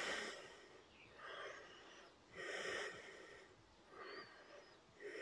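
A man's faint, audible breathing, a breath in or out every second or so, while he holds a standing yoga lunge.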